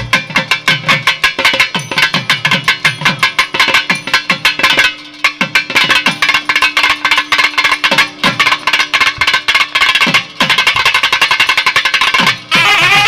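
Thavil drum solo: fast, dense stick and thimble strokes on the barrel drum's two heads, in rhythmic phrases broken by brief pauses. A steady low drone note sounds under the middle of the passage.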